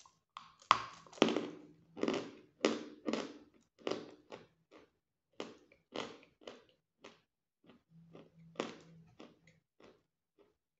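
A person biting into and chewing hard white chalk, with a string of sharp, irregular crunches. The loudest crunch comes just after the first bite, and the crunching grows sparser towards the end.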